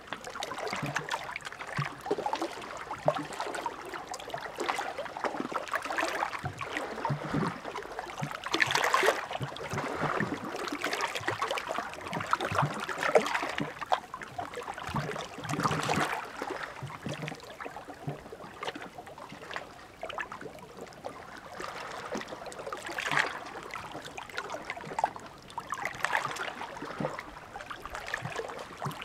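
Small sea waves washing and splashing against the shore, swelling and easing every few seconds.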